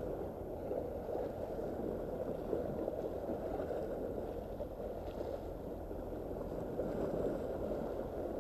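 Small sea waves washing and splashing against a rock shore, a steady rushing sound that swells slightly now and then.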